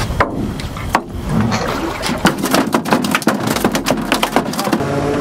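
Rapid run of knocks and taps on an aluminium boat as a freshly gigged flounder and the gig shaft are worked into the fish hatch. A steady motor hum starts near the end.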